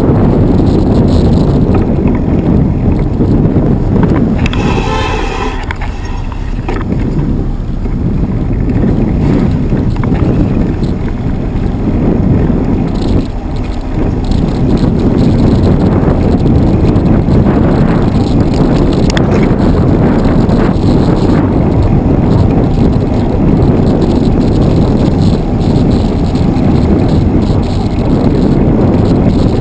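Wind buffeting a cyclist's camera microphone while riding, with a car horn sounding once for about two seconds around five seconds in.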